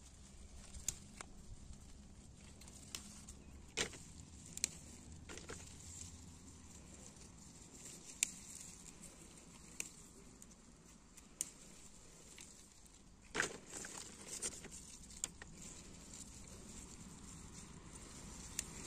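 Peppers being hand-picked into a plastic tub: irregular light snaps and clicks of stems and peppers, with a louder cluster about two-thirds of the way through.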